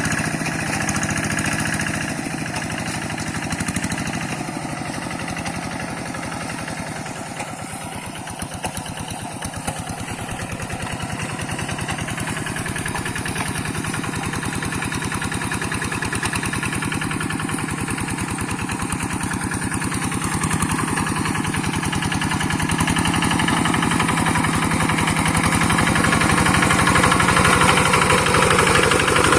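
Two-wheel hand tractor's diesel engine running with a rapid, even beat, dipping slightly a quarter of the way through and growing louder toward the end.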